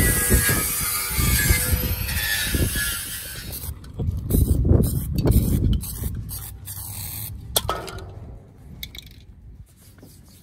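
Cordless angle grinder with a wire wheel scouring rust off a steel bench frame, a loud harsh grind. It stops about four seconds in, leaving scattered lighter knocks and handling sounds that fade toward the end.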